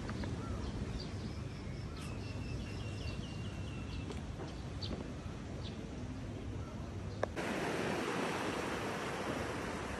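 Faint bird chirps, one a quick run of repeated notes, over a low outdoor background. A sharp click just after seven seconds, then small waves washing onto a sandy beach, with wind on the microphone.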